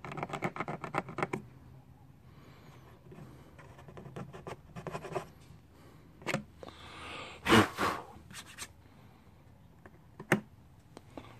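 Scratching and scraping on a scooter's plastic body panel as dried superglue residue is scraped off with a fingernail and a small plastic razor scraper. Quick short strokes at first, then sparser scrapes, with one louder rub about two-thirds of the way through and a sharp click near the end.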